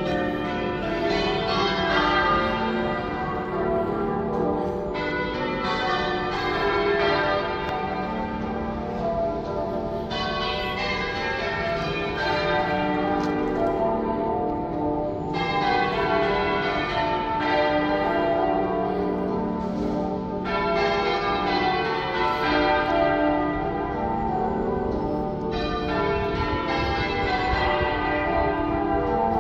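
Manchester Cathedral's church bells being change-rung half-muffled, one stroke of each bell clear and the other deadened by a leather muffle on the clapper, giving the echoing effect used for remembrance. The bells strike one after another without a break, in rows of about five seconds each.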